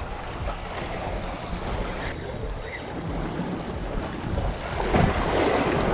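Wind buffeting the microphone over surf washing against jetty rocks, getting louder about five seconds in.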